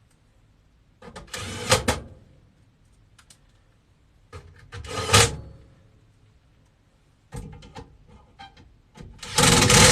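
Cordless drill/driver running sheet-metal screws into a furnace cover panel: three short bursts of the motor about a second each, with small clicks of screws and bit between them.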